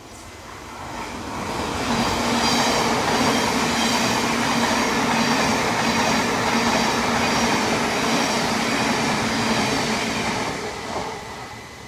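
Thameslink Class 700 electric multiple unit passing through the station at speed: a loud, steady rush of wheels on rail with a low hum and a high whine. It builds over the first two seconds and fades away near the end.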